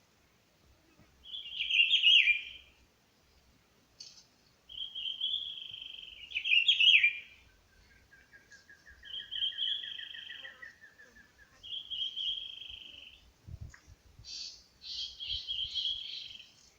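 Birds singing: a high phrase about a second long repeats every couple of seconds, some ending in falling notes. A lower, rapid trill from a second bird sounds through the middle, and a quick run of sharp notes comes near the end.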